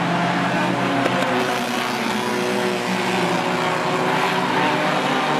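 A field of small four-cylinder compact race cars running laps on a paved oval, several engines heard together at different pitches in a steady, unbroken blend.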